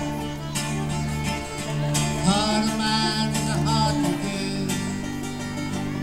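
Bluegrass-style string band of upright bass, banjo, electric guitar and fiddle playing an instrumental passage, with a steady bass line under plucked banjo and guitar. About two seconds in a note slides up in pitch.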